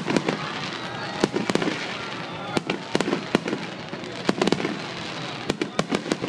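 Aerial fireworks shells bursting in a finale barrage: sharp bangs in quick irregular clusters over continuous crackling.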